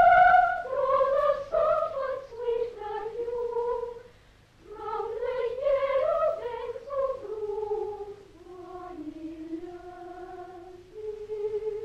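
Soundtrack music: a slow melody sung by a high voice in held notes that step up and down, with a brief break about four seconds in and longer, lower held notes near the end.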